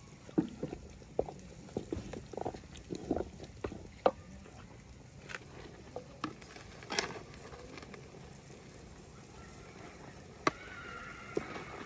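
Irregular light taps and knocks, a quick cluster in the first few seconds and then a few scattered ones, over a low steady background.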